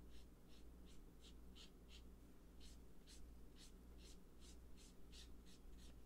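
Faint, short scratchy swishes of a marker's brush tip stroked over cardstock, about two or three strokes a second, over a low steady hum.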